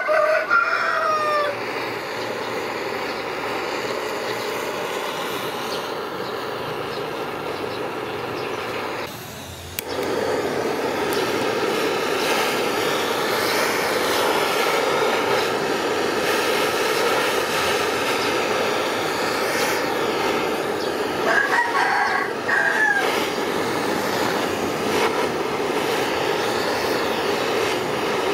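Handheld butane torch on a gas cartridge burning with a steady rushing hiss as it heats a steel knife blade, with a short drop in level about nine seconds in. A rooster crows twice: at the very start and again about two-thirds of the way through.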